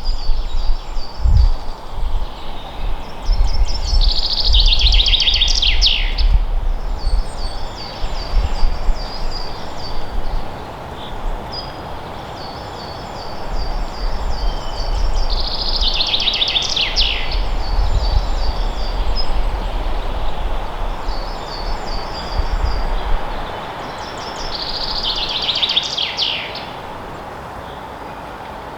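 Forest songbirds singing: thin high notes keep going while one bird repeats a song that ends in a loud, tumbling, falling flourish, three times about ten seconds apart. Wind rumbles in gusts underneath, with a steady rushing hiss.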